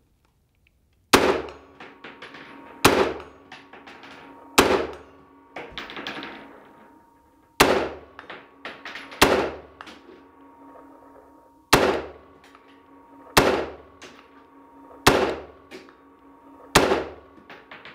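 AR-15 A2 rifle firing nine single, spaced shots, about one and a half to three seconds apart, each sharp report trailing off in a short echo, with lighter clicks in between.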